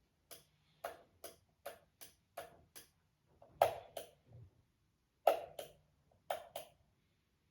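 A string of short, sharp clicks from the plastic toy model car being handled, about two a second at first, then a few louder ones after the middle. No engine sound is heard.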